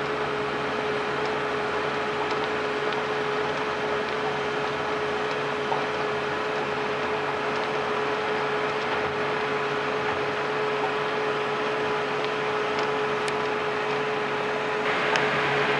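Terra-Gator 8133 self-propelled slurry injector running steadily as it works across the field injecting slurry: an even mechanical hum with a constant whine on top, getting a little louder and brighter near the end.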